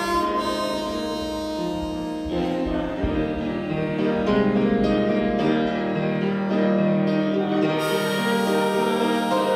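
Harmonica played through a hand-held microphone over keyboard accompaniment, with a woman singing along; sustained melody notes with no break.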